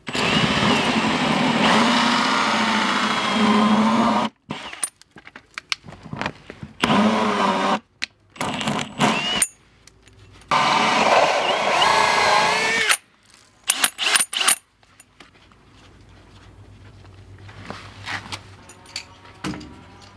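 Cordless drill spinning a hole saw in reverse to cut a 1.5-inch hole through vinyl siding. It runs in several stretches, the motor whine rising and falling: about four seconds at first, two short bursts, then another two to three seconds past the middle. A few short clicks follow.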